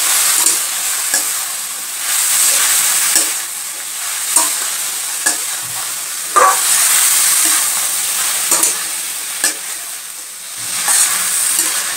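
Chopped snake gourd sizzling in hot mustard oil in a steel wok while a metal spatula stirs it. The spatula scrapes and clicks against the pan about once a second over a steady hiss.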